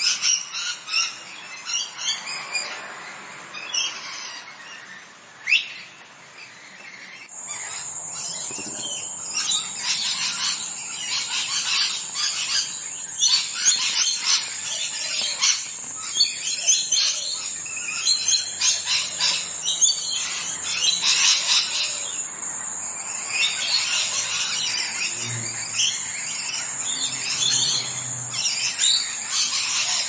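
Parrots chirping: many short calls in quick succession, quieter at first, then denser and louder from about seven seconds in, when a steady high whine joins them.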